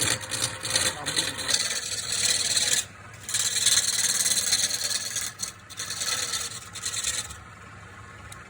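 A tool scraping against wood spinning on a lathe during wood turning: a rasping hiss in passes, with a short break about three seconds in, that stops near the end.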